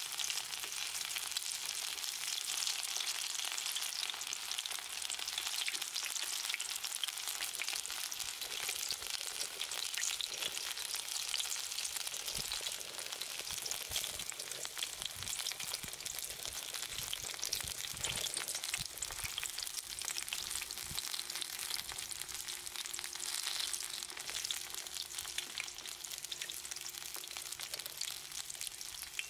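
Battered taranome tempura deep-frying in a pot of hot oil: a steady, dense crackle and sizzle.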